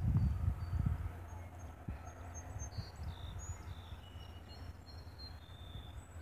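Birds chirping in short, high notes over a low rumble of wind on the microphone. The wind gusts hardest in the first second.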